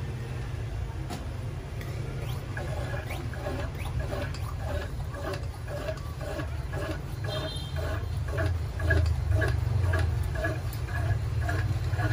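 Hand air pump of a Petromax 827 pressure lantern being stroked to pressurise the fuel tank: a regular squeaking stroke about twice a second, starting about two seconds in, over a steady low hum.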